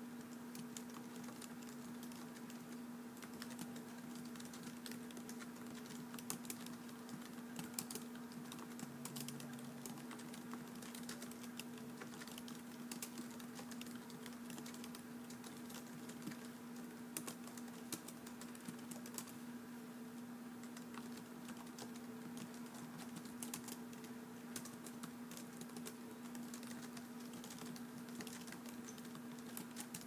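Typing on a keyboard: irregular runs of soft key clicks, with a steady hum underneath.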